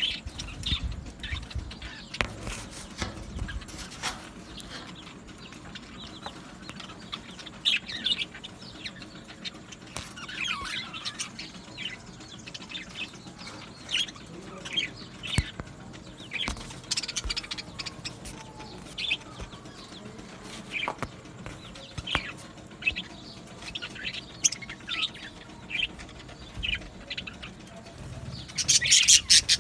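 A colony of budgerigars chirping and chattering, with many short high calls overlapping. Near the end comes a brief flurry of wing flapping.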